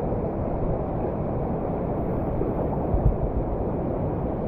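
Steady rush of fast, high-flowing whitewater around a kayak, with a brief low thump about three seconds in.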